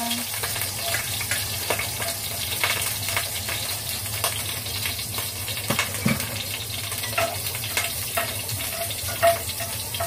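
Garlic frying in hot oil in a wok: a steady crackling sizzle.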